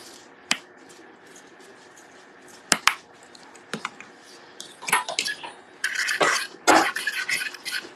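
Kitchen handling noise: a few separate light clicks and knocks of containers and lids, then from about five seconds in a busy run of clattering and scraping of a utensil against dishes.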